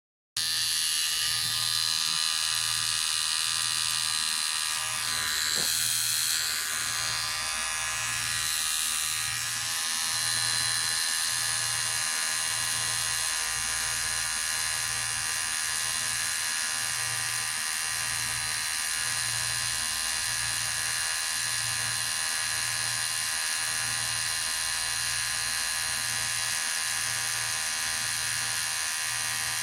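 Electric hair clipper running with a steady buzz, cutting in abruptly right at the start.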